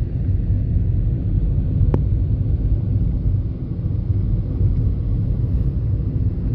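A car driving: a steady low road and engine rumble, with one short click about two seconds in.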